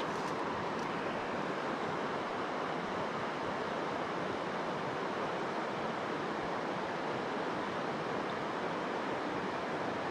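Steady rushing of flowing river water, an even, unchanging wash of noise.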